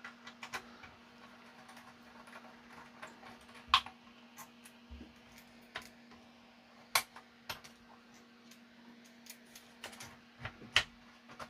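Light, irregular clicks and taps of a screwdriver and fingers working on the metal chassis and plastic parts of an opened 1980s Hinari DP1 CD player, a few louder knocks among them, over a faint steady low hum.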